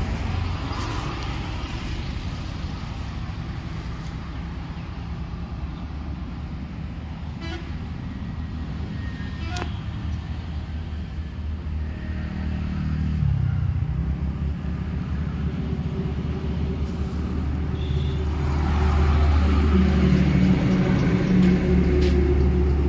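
Passing road traffic: vehicle engines running by with a steady low rumble. One vehicle goes past about halfway through with a drop in pitch, and a louder vehicle comes close near the end.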